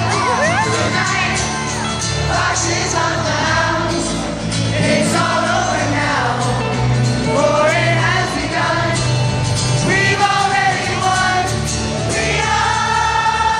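Live acoustic band performance with sung vocals and many voices singing along, recorded on a phone from the audience.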